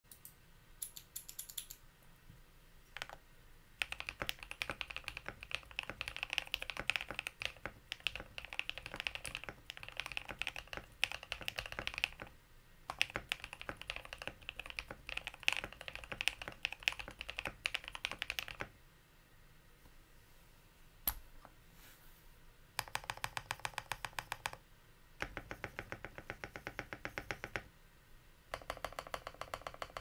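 Typing on a Vortex KBt Re:68 mechanical keyboard with lubed KTT Strawberry linear switches, an FR4 plate and Drop DCP keycaps, its case dampened with PE foam, Kilmat and EPDM tape. Two long stretches of fast, continuous keystrokes, a pause with a single click, then in the last several seconds short runs of rapid, evenly spaced repeated key presses.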